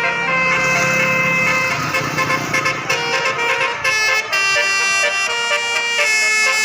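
Bus 'telolet' musical air horn with twelve trumpets and nine notes, playing a tune of held notes that step up and down in pitch. A low rumble runs underneath for the first couple of seconds.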